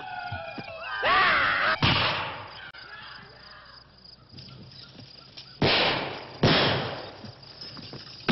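Gunshots in a period gunfight: one shot about two seconds in, then two louder ones close together past the middle, each ringing out and fading. Just before the first shot a man gives a wavering cry.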